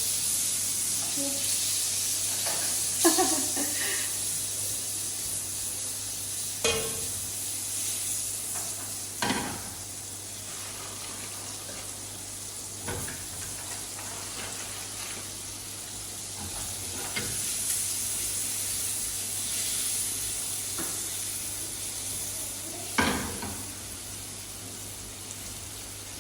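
Food frying in a pan, a steady sizzle, with a few sharp knocks and clinks of utensils against the pan now and then.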